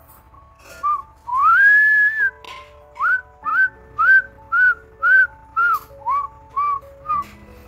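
A whistled tune: a string of short high notes, many scooping up in pitch, at roughly two a second, with one longer held note about a second in, over a soft accompaniment of steady lower tones.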